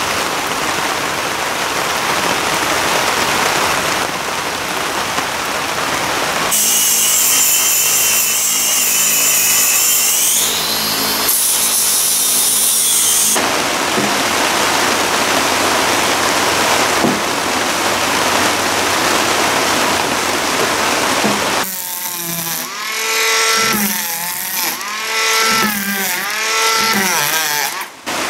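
Handheld power tools dressing the laminated wooden keel. A motor's whine rises in pitch through the middle, and near the end a tool's pitch swings up and down as it bites into the wood, between stretches of steady hiss.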